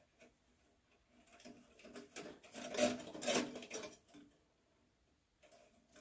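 Thin front-panel connector wires rustling and clicking against the sheet-steel frame of a desktop computer case as they are tugged and worked loose. The small rattles and clicks come in an irregular flurry, busiest between about one and four seconds in.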